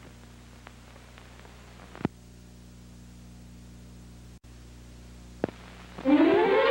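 Steady mains hum and tape hiss from an old VHS transfer, broken by two sharp clicks about two and five and a half seconds in. About six seconds in, orchestral music cuts back in with a rising, gliding run of notes.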